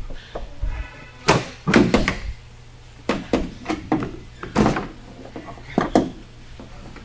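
Plastic windshield cowl panel being worked loose and lifted off by hand: an irregular string of sharp plastic knocks and snaps, about a dozen in all, as it comes free and bumps against the body.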